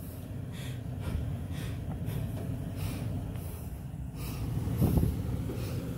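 2013 Toyota Sequoia's V8 engine running at low revs as the SUV crawls over rock, swelling louder briefly about five seconds in.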